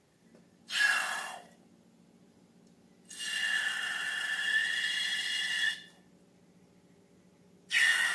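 Air rushing through a balloon's neck with a whistly hiss, three times: a short rush about a second in, a long one lasting about two and a half seconds, then another short one near the end.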